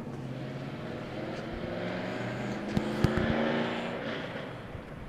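An engine droning as it passes, growing louder to a peak about three seconds in and then fading away, with a couple of sharp clicks near the peak.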